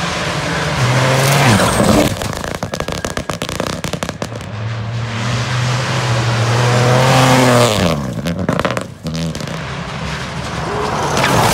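Rally car engine revving hard through the gears on gravel, with a rapid run of sharp crackling pops from the exhaust a few seconds in. The revs drop steeply about two-thirds of the way through, then climb again near the end.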